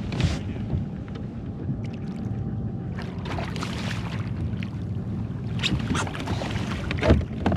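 A hooked striped bass thrashes and splashes at the water's surface beside a kayak as it is brought in, in several bursts with the loudest near the end. A steady low hum runs underneath.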